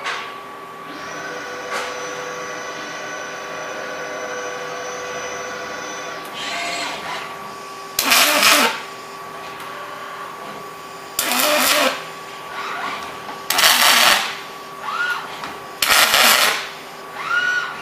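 OTC Daihen Almega AX-V6L welding robot: its servo motors whine steadily as the arm moves, then four short bursts of welding arc on aluminum, each under a second, with the arm's motors gliding up and down in pitch between them.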